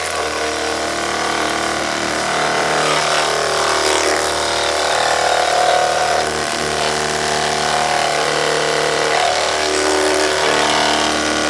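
Cordless battery-powered pressure washer running continuously, its pump motor giving a steady buzzing whine while the water jet sprays against a car's hood.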